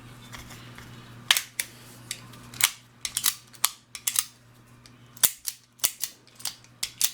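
Llama Comanche III .357 Magnum revolver being function-checked: the action is worked and dry-fired repeatedly. About sixteen sharp metallic clicks and snaps of the hammer and cylinder come at an uneven pace, starting about a second in.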